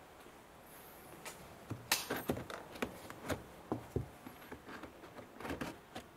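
The carpeted trim panel over the fuse box in a Mercedes W203's boot being pulled off by hand. Its plastic clips and edges click and knock in an irregular run of sharp sounds, starting about a second in.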